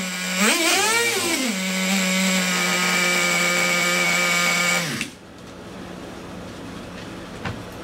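Traxxas 3.3 nitro engine, freshly adjusted and broken in, revved once and then running at a steady fast idle. About five seconds in it winds down and stops, leaving a faint steady hum and a couple of light clicks.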